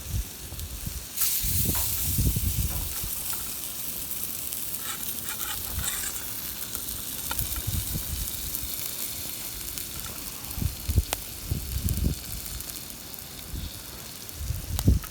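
Food sizzling over a campfire: a steady hiss with a few sharp crackles, and scattered low bumps.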